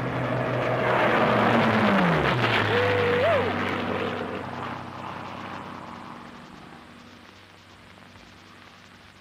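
A Spitfire's engine on an old film soundtrack played over a loudspeaker: the fighter sweeps past, swelling loud with its pitch dropping as it goes by, then fades into the distance.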